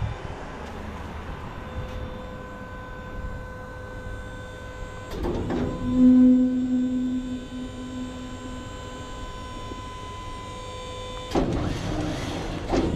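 Electric-hydraulic pump of a roll-off dumpster trailer running with a steady whine as the tilted bed lets the steel dumpster down. About five seconds in, a louder low groan sounds for a couple of seconds, and near the end a louder, rougher noise comes in.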